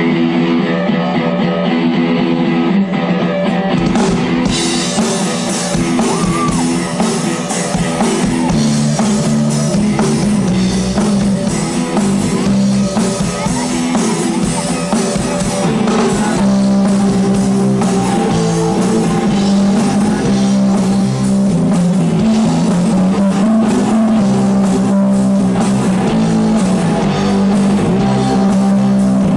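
Live rock band playing an instrumental passage on amplified electric guitars and bass. Drums and cymbals come in about four seconds in, and the band plays on steadily.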